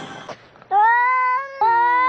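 A cat meowing twice in long, drawn-out calls, the second rising slightly in pitch.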